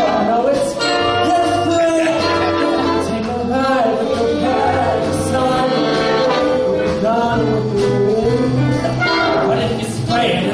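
Musical-theatre number: a man sings a show tune into a handheld microphone over a backing band, with a bass line moving in steady notes underneath.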